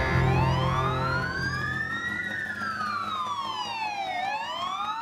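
Fire engine siren wailing: one slow rising-and-falling tone that climbs for about two seconds, sinks for about two, and begins to climb again near the end. Music fades out under it in the first second.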